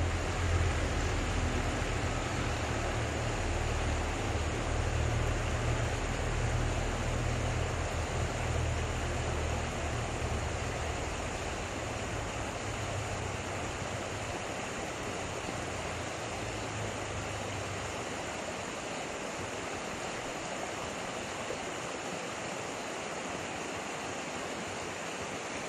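Steady rushing of creek water, with a low rumble underneath that fades out about two-thirds of the way through.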